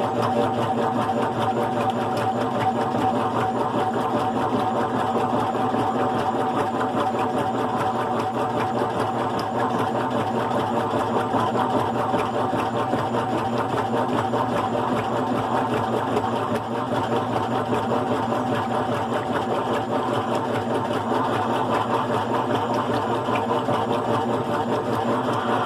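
GE Profile top-load washing machine running, fitted with a single-speed motor: a steady mechanical hum and whirr from the motor and drive, with no break except a brief dip about two-thirds through.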